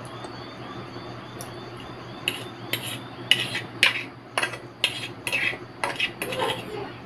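Metal fork scraping and stirring through noodles against a plate, a quick run of about ten scrapes starting about two seconds in, roughly two a second.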